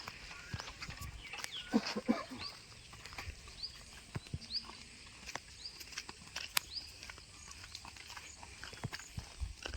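Animal calls: many short, high chirps at irregular intervals, with scattered clicks and a brief lower call about two seconds in.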